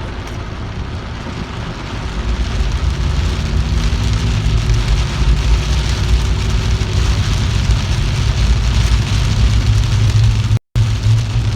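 Rain falling, with a vehicle's low engine and road rumble underneath; both grow louder about two seconds in. The sound cuts out for an instant near the end.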